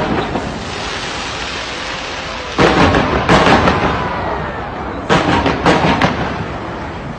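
Large fireworks display going off: a continuous crackle of bursting shells with heavy booms, the loudest coming in two clusters about two and a half and five seconds in.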